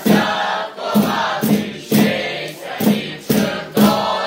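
A group of voices singing and chanting a Ukrainian Christmas carol (koliadka) together, in loud, strongly accented phrases that come every half second to a second.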